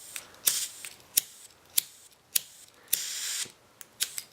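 Disposable butane lighter's flint wheel being struck over and over, a sharp scratchy click roughly every half second to second, with one longer hiss about three seconds in.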